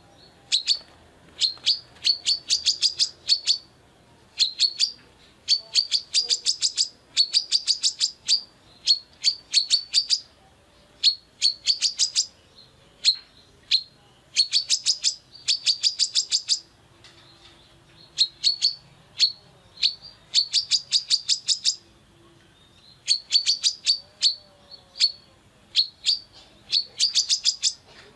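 Female brown-throated sunbird (kolibri kelapa) calling: rapid runs of sharp, high chirps, each run lasting a second or two, repeated after short pauses.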